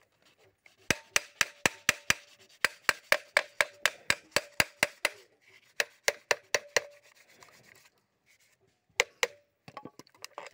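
Hammer tapping on the metal housing of a Tata Sumo starter motor, quick strikes about four a second with a short metallic ring, then a pause and two more taps near the end. The parts are being knocked into place as the starter is reassembled.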